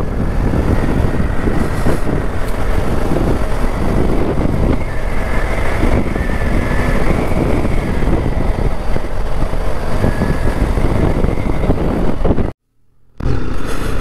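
Motorcycle running at road speed, its engine mixed with a steady rush of wind on the rider's camera microphone. The sound cuts out for about half a second near the end.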